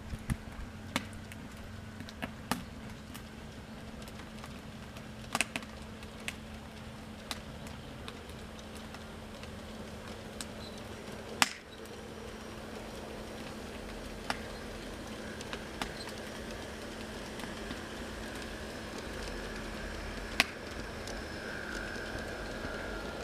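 G-scale model trains running on outdoor garden track: a steady low hum with sharp clicks now and then from the wheels on the rails, the loudest clicks about eleven and twenty seconds in.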